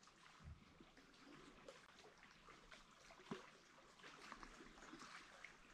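Near silence: faint outdoor ambience with a few small scattered ticks.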